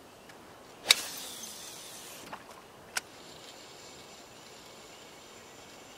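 A fishing cast with a spinning rod and reel: a sharp snap, then line hissing off the spool for about a second, and a sharp click about two seconds after the snap, as the reel's bail closes.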